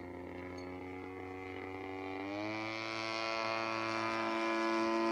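Radio-controlled model airplane's motor running in flight, a steady droning whine. Its pitch steps up about two seconds in, and it grows gradually louder.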